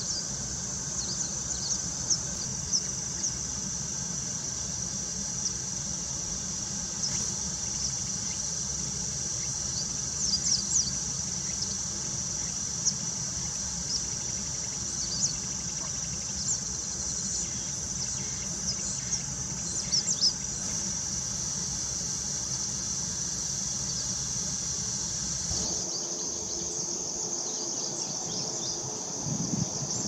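Steady high-pitched chorus of crickets and other insects, with short, high bird chirps every few seconds, clustered around 10 s and 20 s in. The background changes abruptly about 26 seconds in.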